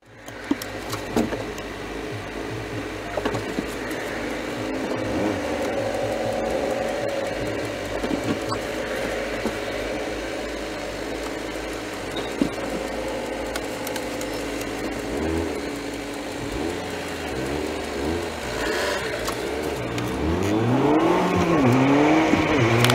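Car engine and road noise heard from inside a moving car. The engine's pitch rises and falls again and again in the last several seconds as the car pulls away and accelerates through the gears.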